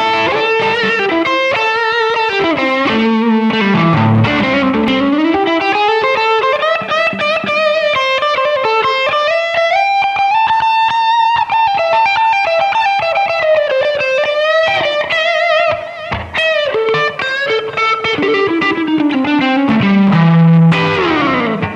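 Les Paul Custom electric guitar played through an amplifier: a single-note melodic line with notes sliding down and back up, and a long held note midway.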